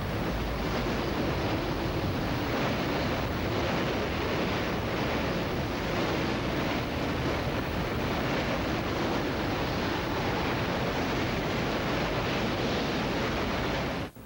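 Strong storm wind near a tornado rushing and buffeting the microphone: a loud, steady noise that stops abruptly near the end.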